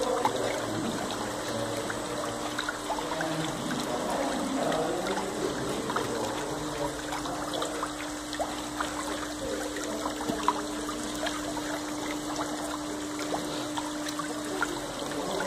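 Liquid swirling in a whirlpool tank, a steady rushing, splashing water sound with scattered small splashes. A steady hum runs beneath it and stops shortly before the end.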